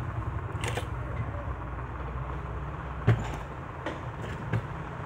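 A steady low rumble with a few light clicks and knocks, the sharpest about three seconds in.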